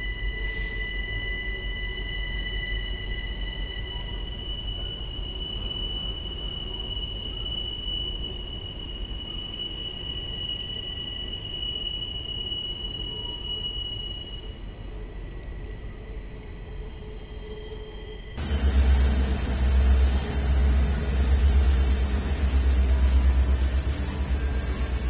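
Steel wheels of freight cars squealing against the rail on a sharp curve, several steady high-pitched tones over the low rumble of the rolling train. About three-quarters of the way in it cuts to the louder, deep rumble of a Norfolk Southern diesel locomotive passing close by.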